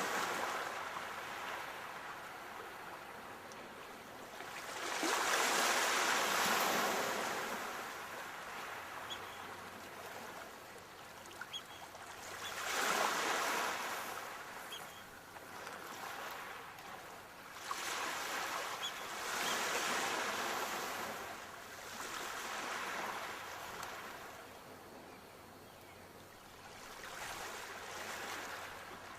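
Sea waves breaking and washing onto the shore, a wave coming in every four to six seconds, each one swelling and then falling back into a steady hiss.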